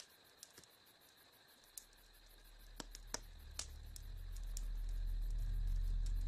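Faint steady insect chirring with a few sharp clicks. About two seconds in, a low rumble joins and swells steadily until it is the loudest sound.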